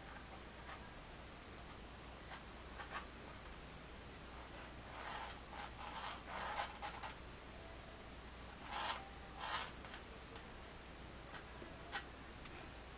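Pencil scratching and rubbing across the painting surface while sketching, in short faint strokes grouped into two spells about a third and two thirds of the way through, with a few light ticks.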